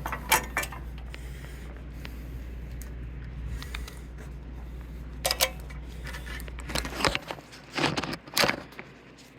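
Printer parts being handled and fitted back together: a few sharp clicks and scrapes, with a cluster of knocks near the end, over a low steady hum that stops about seven seconds in.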